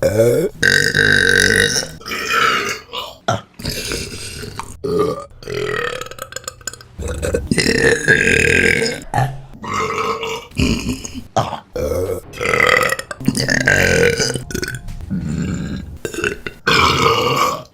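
A rapid series of loud burps from different women, about ten in turn, each a drawn-out belch with a wavering pitch, separated by abrupt cuts between clips.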